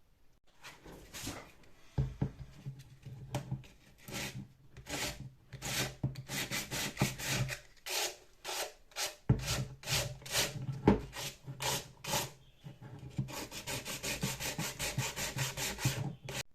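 Sandpaper on a flat sanding support scraping back and forth over hardened UV-cured resin on a plastic tail lamp housing, rough-shaping it to the lamp's profile. Short rasping strokes, a few a second, starting about half a second in and coming faster near the end.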